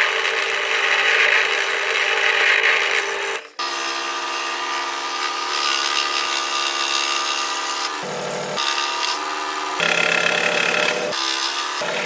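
Drill press running as a small bit bores holes through thin wood. About three and a half seconds in it gives way to a scroll saw running, its reciprocating blade cutting out the pattern, the sound shifting a few times.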